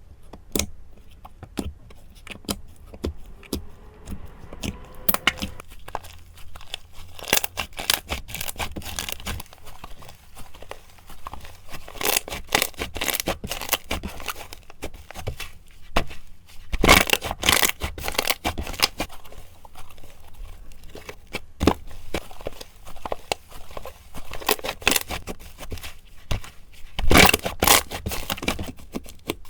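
Slime being worked by hand, giving a dense, irregular run of sticky crackles, pops and tearing sounds, with louder bursts about two fifths of the way in, just past halfway and near the end.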